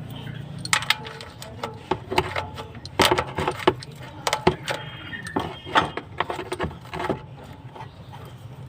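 Metal tools clinking and knocking: an irregular run of sharp taps and rattles, some ringing briefly.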